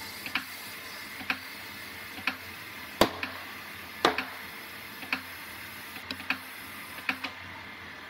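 Sharp clicks roughly once a second over a steady hiss while a tire on a tire changer is inflated through an air chuck on the valve stem. Two louder knocks come about three and four seconds in.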